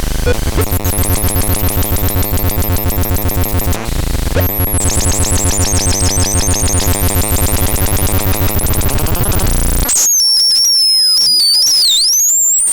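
Modular synthesizer patch playing a rapid, buzzy pulsing pattern that shifts character about four and a half seconds in. About ten seconds in it switches to high, thin whistling tones that glide up and down.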